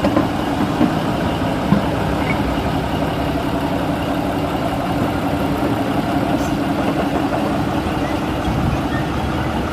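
Diesel shunting locomotive engine idling steadily, with a couple of light knocks near the start.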